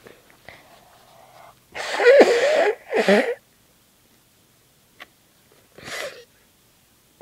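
A woman sneezing uncovered. A faint breathy build-up leads into a loud sneeze in two bursts about two seconds in. A shorter, quieter burst follows near the end.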